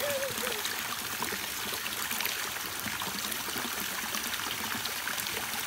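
Steady stream of water pouring from a bamboo spout into a water-filled stone basin and splashing.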